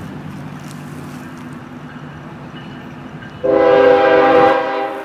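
Diesel locomotive air horn of an approaching freight train led by Kansas City Southern units: one loud blast of about a second and a half, starting suddenly about three and a half seconds in. A low steady rumble lies under it.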